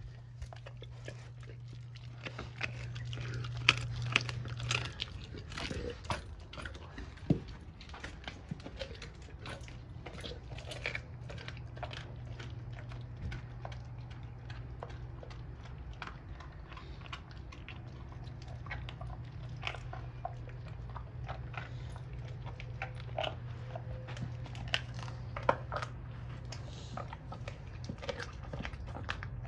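A Doberman chewing a raw pork bone with meat on it: irregular wet chewing broken by sharp cracks and crunches of teeth on bone, over a steady low hum.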